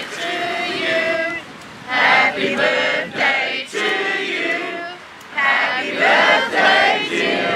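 A crowd singing together in chorus, in phrases with short breaks between them.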